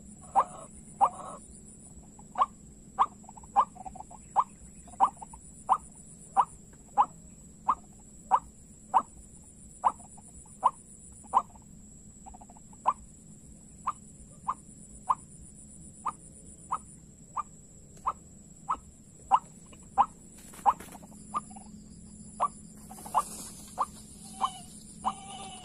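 White-breasted waterhen (ruak-ruak) calling: a long, evenly spaced series of short, sharp notes, about one and a half a second, all at the same pitch.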